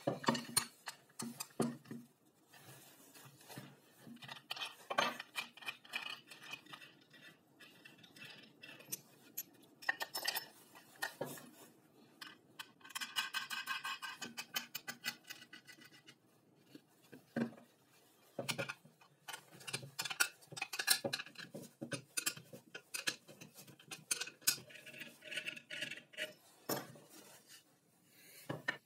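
Metal hand tools and hardware handled on a wooden workbench: a combination wrench turning a nut on a bolt through a plywood plate, with scattered clinks and knocks as tools and parts are set down. A run of rapid clicking comes about halfway through.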